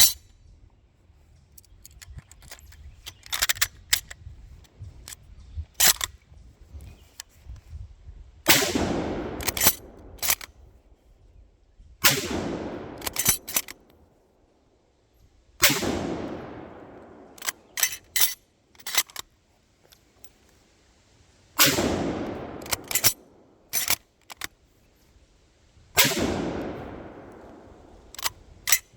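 Arisaka Type 99 bolt-action rifle in 7.7x58mm fired five times, a few seconds apart, each shot trailing off in a long echo. Between shots come quick groups of sharp metallic clicks as the bolt is worked to chamber the next round.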